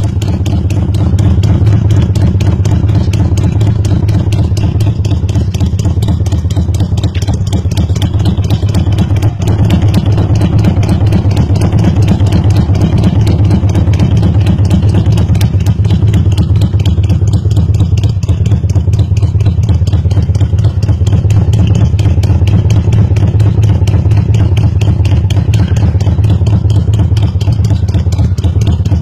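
Exhaust of a 200cc Road Master motorcycle engine idling, heard up close at its chrome muffler: a steady, low humming with no change in revs.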